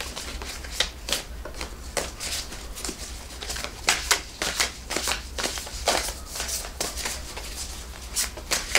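A tarot deck being shuffled by hand: irregular soft slaps and riffles of the cards, over a low steady hum.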